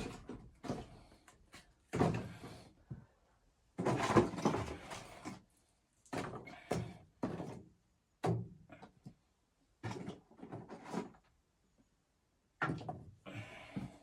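Irregular knocks, thuds and scraping from things being handled, in a dozen or so separate short bursts, the loudest about four seconds in.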